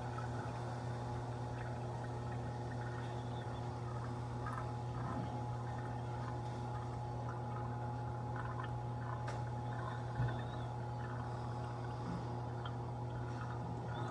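Red Sea 300 XL reef aquarium running: a steady low hum from its equipment under trickling, splashing water. One dull thump about ten seconds in.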